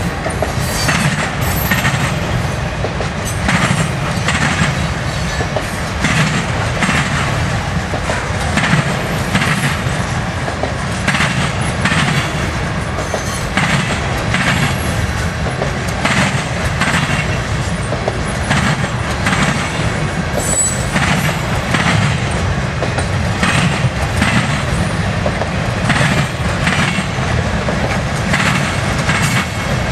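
Freight train cars rolling past: a steady heavy rumble with regular clickety-clack of the wheels, the clacks coming in pairs every second or so.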